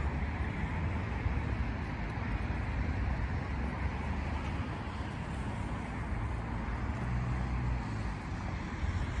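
Wind buffeting the microphone: a steady, uneven low rumble with a hiss of open-air noise.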